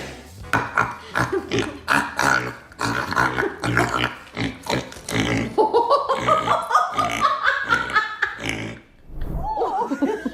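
A dog vocalizing: a quick run of short grumbling grunts, then a longer pitched whine that rises and wavers, in protest.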